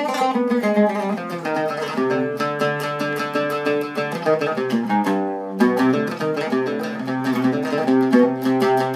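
Zeryab (Ali Khalife) Premium 2 Syrian oud played solo: a run of plucked notes, then a single note left ringing about five seconds in, followed by fast, evenly repeated plucking.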